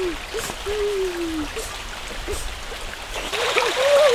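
Stream running steadily, with several long falling whine-like calls over it in the first half. After about three seconds the water hiss grows louder and quicker short rising-and-falling calls come in.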